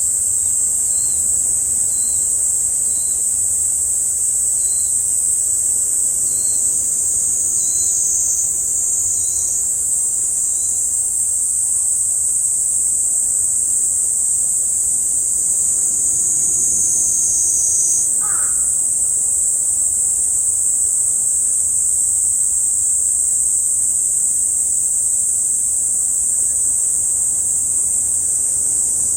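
Chorus of cicadas, a steady, loud, high-pitched drone. Faint short chirps about once a second sound for the first ten seconds or so, and a single short bird call comes about two-thirds of the way through.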